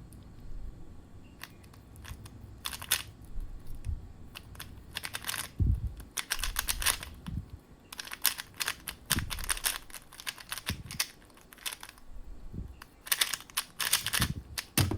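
A MoYu RS3M 2020 magnetic 3x3 speed cube being turned fast during a solve: rapid plastic clicking and clacking in runs of turns, broken by a few short pauses.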